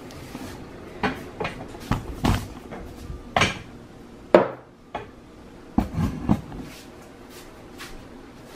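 Irregular knocks and clatters of household handling, the sharpest about four seconds in as a ceramic coffee mug is set down on a wooden table.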